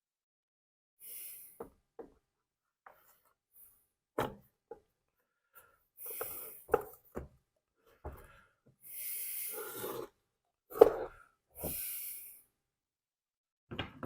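Plastic blower housing parts being handled and fitted together: scattered clicks and knocks, the loudest about eleven seconds in, between short bursts of rubbing and scraping.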